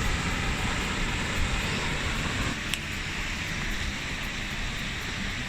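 Steady rush of a small waterfall, an even hiss of falling water with a low rumble underneath.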